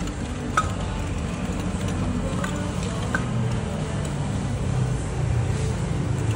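Steady low rumble of road traffic, with a few light clinks and knocks as a wooden pestle and a metal spoon work in a clay mortar.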